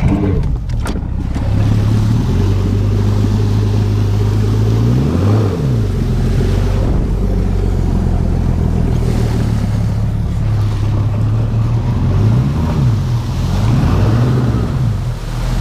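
A 200-horsepower outboard motor on a bass boat runs under way, with water and hull noise over it. Its pitch dips and comes back up briefly about five seconds in, and again twice near the end as the throttle is eased and reapplied.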